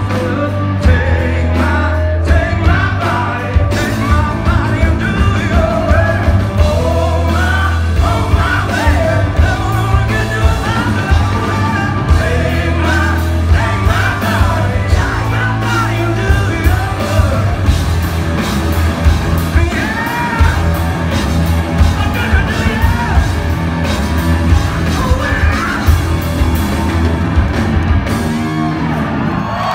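Rock band playing live at full volume: lead vocals over electric guitars, bass and drums, heard from the audience in a large hall.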